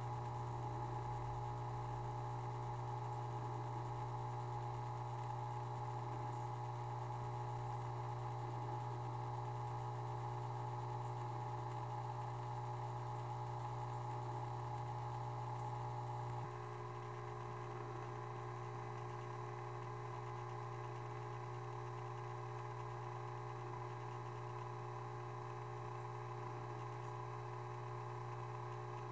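A small motor humming steadily, with a few faint steady higher tones over it; the hum drops a little in level about sixteen seconds in.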